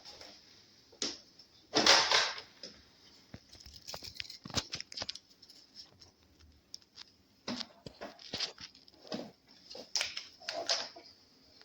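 Scattered clicks, taps and rustling, as of objects being handled close by. The loudest is a short rustling scrape about two seconds in, and no motor is running.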